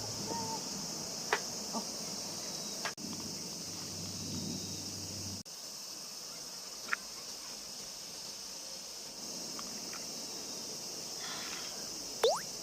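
Summer insects droning steadily in a high-pitched band, with a few faint clicks. A short, quick rising sweep sounds near the end.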